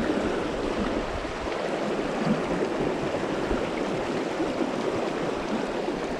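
River water running steadily over a shallow riffle, an even rushing wash.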